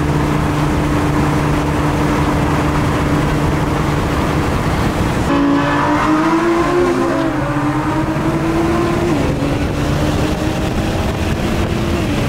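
Car engines droning at a steady cruise. About five seconds in, the sound switches to engine and road noise inside a moving car, with the engine note wavering up and down.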